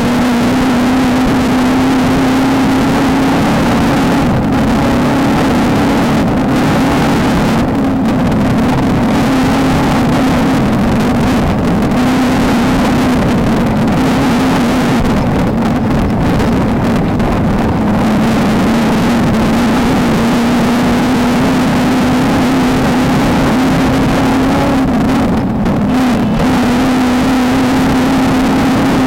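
VW Beetle-based off-road race car's engine running hard at nearly steady revs, its pitch rising and dipping a little, with a noisy rush of wind.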